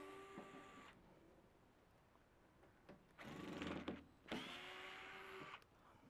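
Small electric screwdriver motor whirring in three short runs as it backs screws out of a microwave's sheet-metal cabinet: one at the start, then two more in the second half, each lasting about a second.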